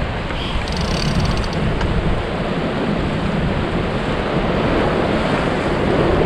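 Ocean surf washing and breaking against shoreline rocks, mixed with wind buffeting the microphone; a steady rushing noise with a low rumble.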